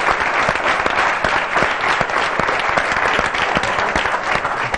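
Studio audience applauding, many hands clapping together in a steady, dense patter.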